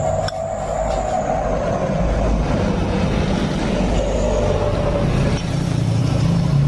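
A motor vehicle's engine rumbling steadily nearby, growing louder toward the end.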